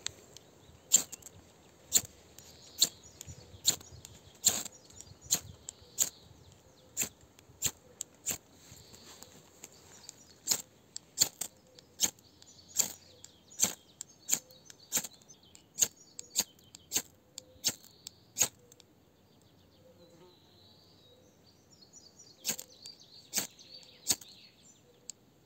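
A run of sharp clicks or taps, roughly one or two a second, that pauses for a few seconds near the end and then starts again, with faint chirping behind.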